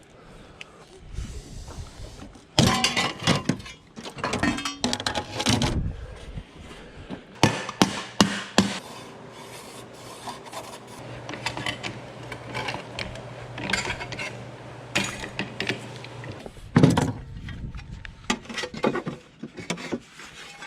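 Irregular scraping, rubbing and knocking of hand work on a car's body panels, in several loud spells. A faint steady hum runs underneath from about halfway in until about three quarters of the way through.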